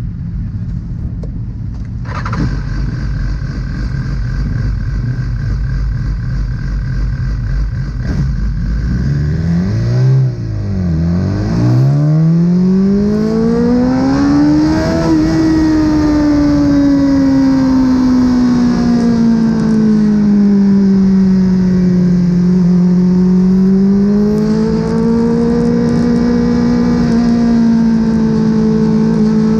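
BMW S1000RR inline-four with Akrapovic exhaust, heard from on board the bike. It runs low and steady at first, then the revs climb steeply about twelve seconds in. The engine is then held at high revs, its pitch sagging and rising slowly.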